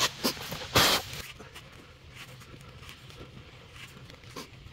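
A 25 mm wood auger bit turned by hand, boring into a solid block of dead wood with crunching, creaking clicks and one loud crack about a second in. It then stops, leaving only faint background.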